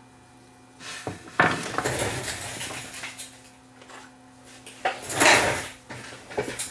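Small metal hand tools and parts clattering and rattling on a workbench in two bursts. The first comes about a second in and lasts about two seconds; the second, shorter one comes near the end. A few sharp clicks are mixed in.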